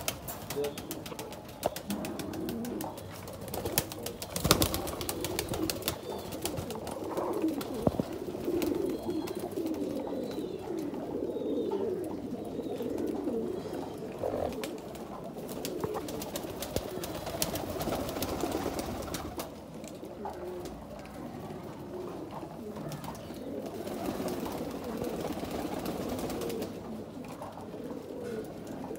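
A caged flock of Lahore pigeons cooing together in a continuous low, overlapping murmur. A few sharp knocks stand out, the loudest about four and a half seconds in.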